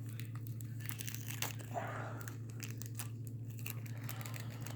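Crinkling of a small plastic parts bag and scattered small clicks as tiny lock-cylinder tumblers are picked through by hand, over a low steady hum.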